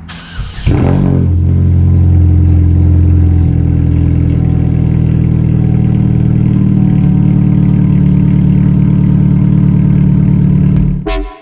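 A car engine catches and runs steadily and loudly. Its tone shifts a little a few seconds in, and it cuts off suddenly near the end.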